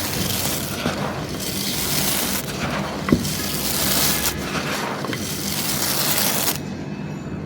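Dry, crumbly material such as charcoal or baked clay being crushed and crumbled, in four long gritty surges with a sharp crack about three seconds in.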